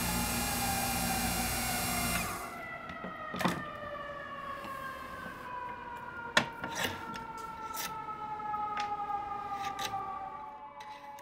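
Wood lathe switched off and coasting down: the running noise stops about two seconds in, then the motor whine slowly falls in pitch, with several sharp clicks along the way.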